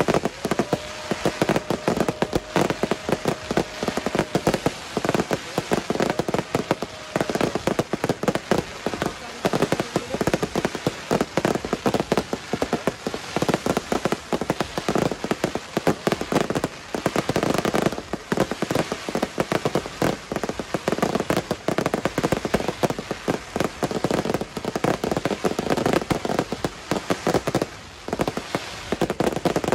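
Daytime fireworks barrage: a dense, near-continuous run of rapid cracks and bangs, many a second, with only brief lulls.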